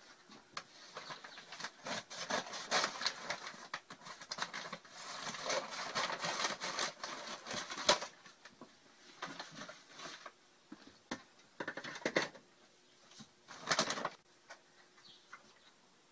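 Flour being scooped from a bag with a measuring cup and tipped into a stainless steel mixing bowl: the bag rustles and the cup scrapes, with scattered clicks and knocks. The rustling is busiest in the first half and thins out later, with one louder rustle near the end.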